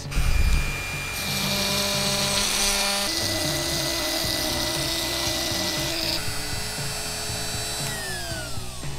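CNC router's 710 W spindle milling aluminium plate with a double-flute metal-cutting end mill: a steady high whine with a hissing cutting noise. Near the end the whine falls steadily in pitch as the spindle spins down. Background music plays underneath.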